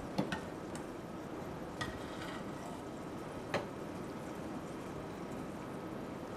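A metal ladle scooping soup from a stainless steel saucepan, clinking against the pan a few times, over the steady hiss of a pot of water boiling on the stove.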